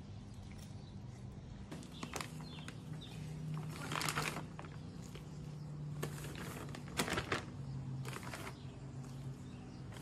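Plastic bags crinkling in short bursts as cut-up chicken pieces are handled and bagged, over a steady low hum.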